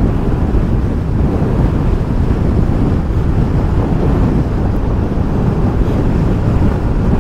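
Steady, loud wind rush on the microphone as a Honda SH350i scooter rides at speed, with the scooter's running and road noise blended underneath.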